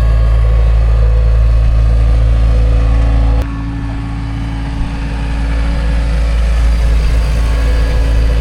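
Skid steer loader engine running steadily. About three and a half seconds in it drops suddenly to a lower, quieter note, then climbs back up over the next few seconds.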